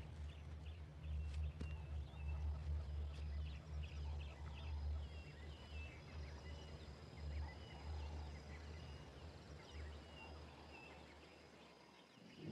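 Faint wild-bush ambience: scattered short bird chirps and twitters over a steady low rumble, fading out near the end.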